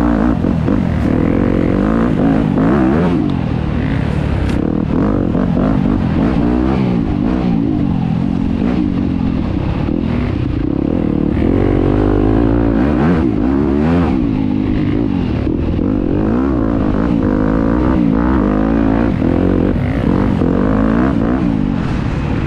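Enduro dirt bike engine under hard off-road riding, its revs rising and falling constantly with throttle and gear changes.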